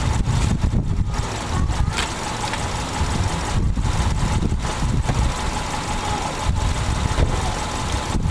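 2000 Subaru Outback's engine idling steadily, a low, even rumble.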